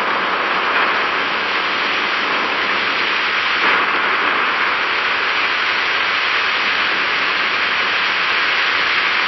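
Heavy rain pouring down: a dense, steady hiss.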